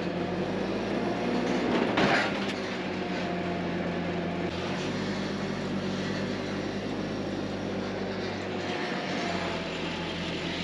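Forklift engine running steadily as it drives, its note shifting a little now and then. A short, loud burst of noise about two seconds in.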